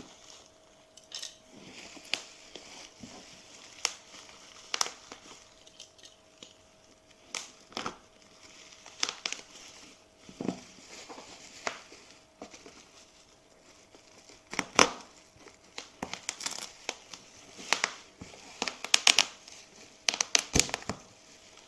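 Black bubble-wrap plastic packaging being slit with a utility knife and torn off a cardboard box: irregular crinkling and tearing with sharp crackles, busier and louder in the second half.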